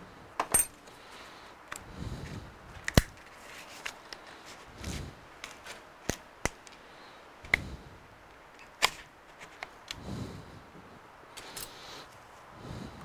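Small sharp clicks and taps at irregular intervals as a thin plastic opening pick is worked under the cracked display glass of a Surface Pro 9 to pry it up. Soft low thuds of handling come in between.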